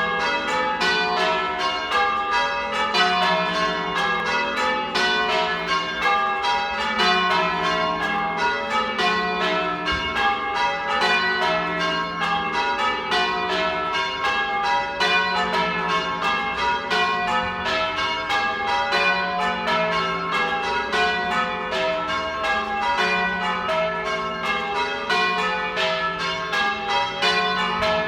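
Church tower bells being change rung: a ring of bells struck one after another in quick, even succession, each stroke leaving a ringing tone that overlaps the next.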